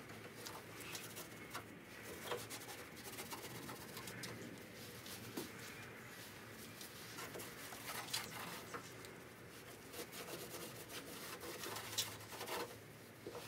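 Faint, irregular rubbing and scrubbing of a disinfecting wipe over the Mini Cooper's grille opening, with a few small clicks and knocks.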